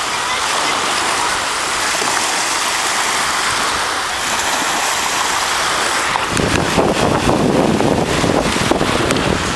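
Surf washing on a beach with wind blowing across the microphone. About six seconds in, the wind starts buffeting the microphone harder, adding a gusty low rumble.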